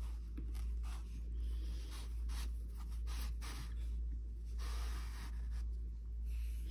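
Rustling and scratching as black yarn is drawn through a plush crocheted doll and hands handle the doll: a string of short, uneven scrapes over a steady low hum.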